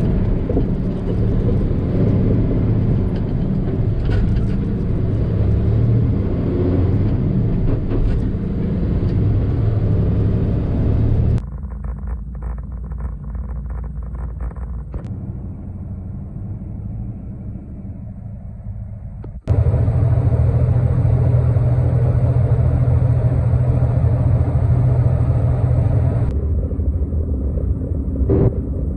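Diesel log truck running down the road, heard from inside the cab: a steady low engine drone with road rumble. The sound changes abruptly in loudness and tone about 11 seconds in and again about 19 seconds in.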